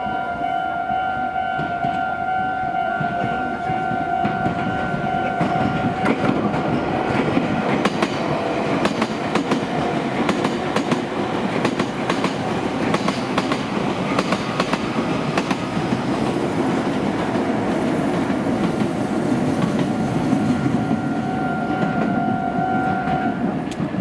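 Japanese level-crossing warning bell ringing, with the red Meitetsu electric train's wheels clattering and rumbling over the rail joints as it passes. The steady bell tones are plain at the start, are drowned by the train for most of the time, return near the end and stop just before the end.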